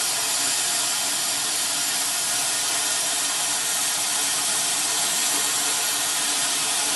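Oxy-fuel cutting torch hissing steadily as it cuts through a steel rod.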